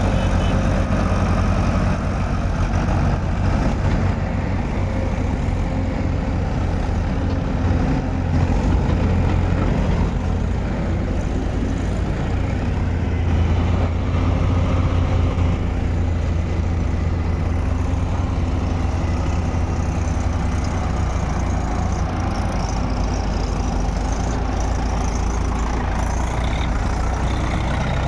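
Diesel farm tractor engine running steadily under load as it hauls a heavily loaded trolley through deep mud.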